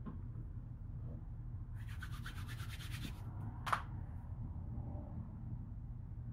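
Quiet handling noises at a cabinet record player: a faint rubbing scrape lasting about a second and a half, then a single sharp click. A low steady hum lies under it.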